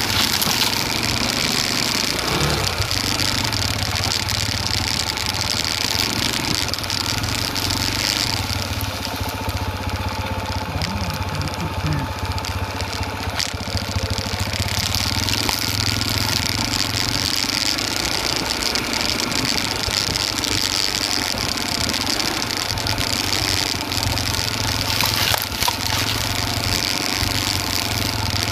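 Off-road motorcycle engine running steadily at low speed while being ridden along a rough dirt trail, with a steady high hiss that eases off for several seconds in the first half.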